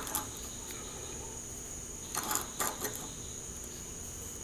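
Light clicks and taps of a steel combination square and a marker against a steel flat bar on a metal work table, a couple of them about two seconds in, over a faint steady high-pitched whine.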